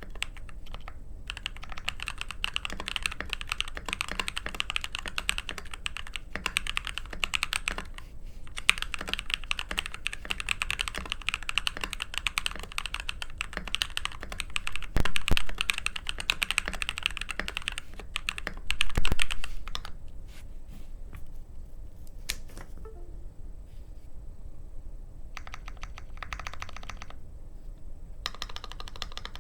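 Mode SixtyFive mechanical keyboard with copper plate, lubed Tecsee Porcelain Blue 62g switches and DSA keycaps, typed on fast and continuously, with two louder flurries. About two-thirds of the way through the typing thins out to separate presses and short runs of the modifier keys.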